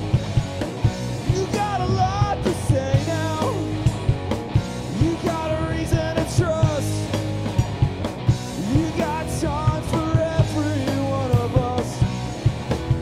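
A rock band playing a song live, with drum kit, electric guitars and bass, and a melody line that slides and wavers in pitch over the top.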